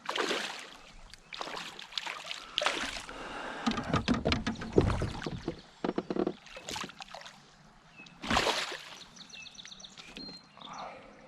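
Water splashing and sloshing around a kayak, with knocks and low bumps against the hull in the middle. A few faint high chirps come near the end.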